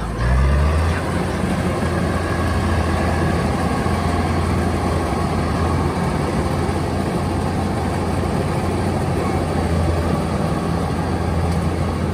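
Diesel engine of a Kubota DC-105X rice combine harvester running steadily under load in a muddy paddy. It rises briefly in pitch just after it begins, then holds a steady, loud drone.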